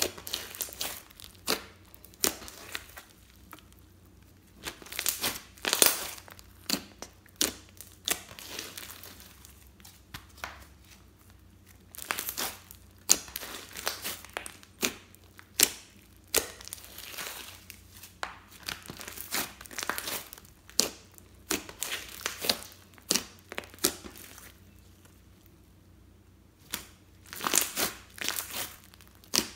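Hands kneading, stretching and pressing a thick blue slime, giving irregular clusters of crackly pops and sticky tearing sounds as air pockets in it burst, with a few short pauses.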